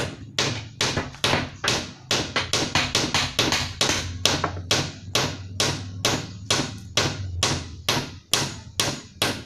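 Hammer striking a wooden door frame: a steady run of sharp blows, about three a second.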